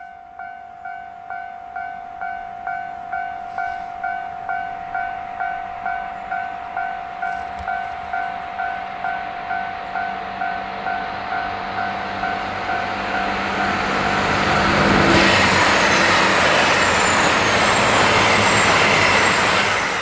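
Japanese level-crossing alarm ringing its steady electronic ding, about two strokes a second, as a diesel train approaches. About fifteen seconds in, the train passes close by and the loud rush of its engines and wheels on the rails drowns out the bell.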